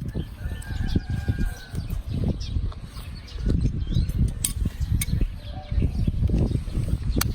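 Irregular scraping and knocking of a donkey's hoof being trimmed, with sharp clicks now and then and faint bird chirps in the background.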